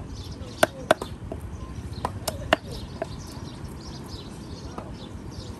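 Five sharp knocks or taps, two together just under a second in and three more about two to two and a half seconds in, over a steady background with faint high chirping.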